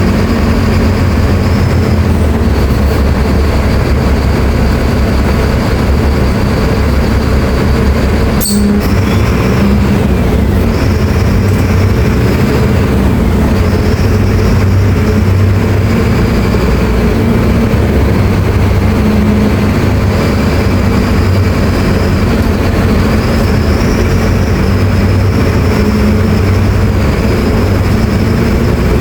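Mercedes-Benz OF-1724L BT5 bus's four-cylinder turbo-diesel running on the road, a steady low rumble whose pitch steps up and down, with a high whine rising and falling over it. A single sharp click about eight seconds in.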